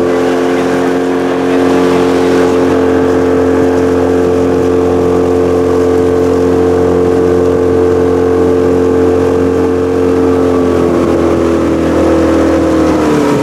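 Outboard motor of a flat-bottom boat running steadily under way; its engine note falls near the end as it slows.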